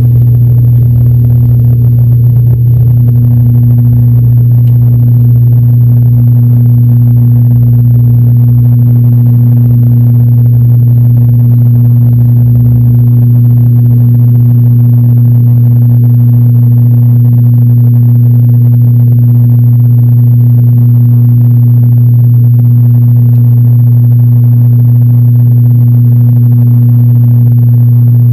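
Steady, loud drone of an ATR 72-600's Pratt & Whitney PW127M turboprop and six-blade propeller at takeoff power, heard inside the cabin beside the engine. A low rumble from the wheels on the runway dies away about 13 seconds in as the aircraft lifts off.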